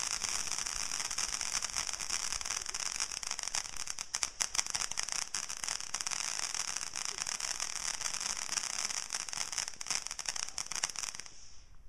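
Ground fireworks fountain spraying sparks: a steady high hiss with many sharp crackles through it, stopping near the end as the fountain burns out.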